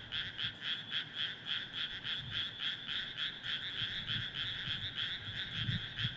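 Chorus of many frogs in a rice paddy calling at once, overlapping croaks in a fast, steady rhythm of about four pulses a second.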